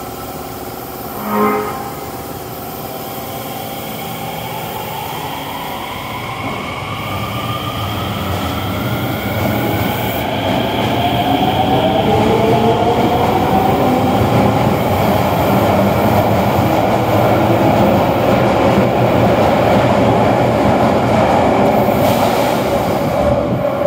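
Osaka Metro 66 series subway train pulling out of an underground station. A short pitched sound comes about a second and a half in; then the motor whine rises in pitch as the train accelerates, and the running noise grows louder and stays loud as the train leaves.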